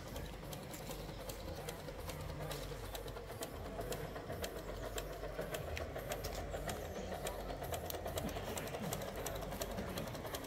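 Coal-fired gauge 1 live-steam model locomotive and its wagons running past, with a rapid clicking and rattling of wheels over the track, strongest as it passes close in the middle.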